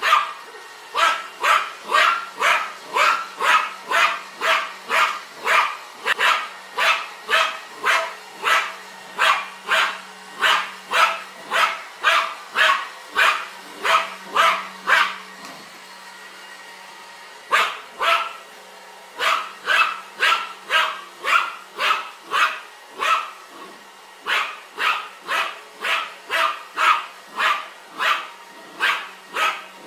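Dog barking over and over at a vacuum cleaner, about two barks a second, with a pause of about two seconds midway. A faint steady low hum runs underneath.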